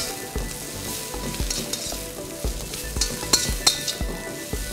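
Sliced onions, garlic and chillies sizzling in oil in a steel kadai, while a metal slotted ladle stirs them, scraping and clinking against the pan a few times a second.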